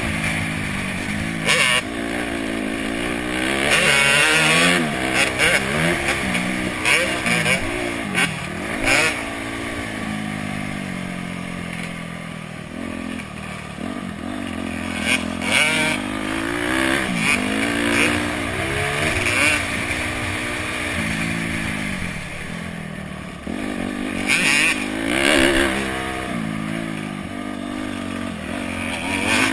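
Honda CRF250X's four-stroke single-cylinder engine being ridden hard, revving up and dropping back again and again as it runs through the gears.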